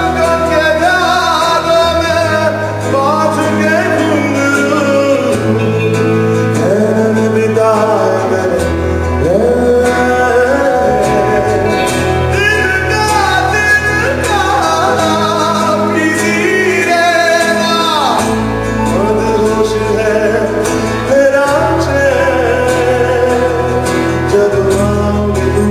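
Live band music: a man singing lead over acoustic guitar and drums, his voice gliding up and down over held low notes.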